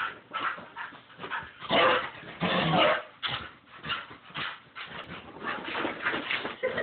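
A dog whining and barking in a run of short, excited calls, loudest about two seconds in: its agitated reaction to perfume being spritzed and the bottle waved around.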